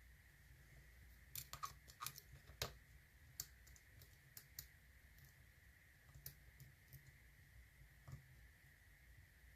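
Faint, irregular clicks of a lock pick working the pins of an American Lock padlock under tension, single-pin picking with serrated pins ticking as they are lifted. About a dozen short ticks come in small clusters, over a faint steady high hum.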